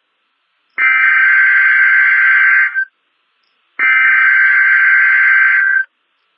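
NOAA Weather Radio SAME digital header: two bursts of data tones, each about two seconds long and a second apart. They encode the alert for a Required Weekly Test.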